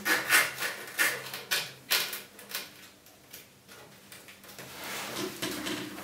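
PC power-supply cables being handled and routed inside a computer case: irregular clicks, knocks and rubbing of cable and plastic against the case. They come thickly in the first half and more sparsely after that.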